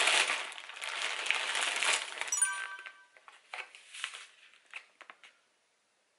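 Plastic courier delivery bag being pulled apart and torn open by hand: loud, dense crinkling for about two and a half seconds. It is followed by lighter, scattered rustling of plastic packaging and a seasoning pouch that dies away about five seconds in.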